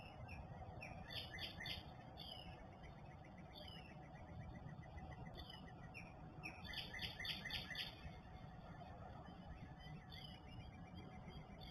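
Songbirds singing: northern cardinals and Carolina wrens, with slurred whistled notes about once a second and two short runs of rapid notes.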